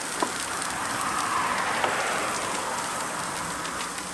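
Plant-based burger patties and meatless chicken patties sizzling steadily on a hot flat-top griddle, with a couple of faint clicks.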